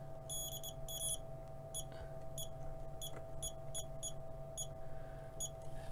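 Signal generator's keypad beeping, about a dozen short, high electronic beeps at uneven intervals as its buttons are pressed to set the output frequency, over a steady low hum.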